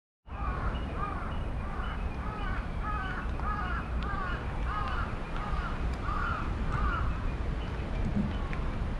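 A bird calling in a long series of short calls, about two a second, stopping about seven seconds in, over a steady low background rumble.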